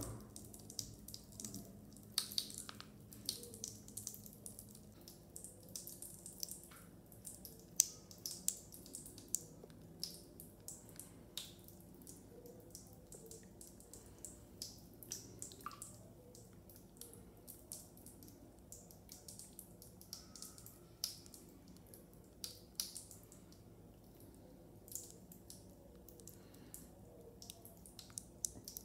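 Lush Dragon's Egg bath bomb fizzing in bathwater: small bubbles popping and crackling in irregular sharp clicks, like faint drips.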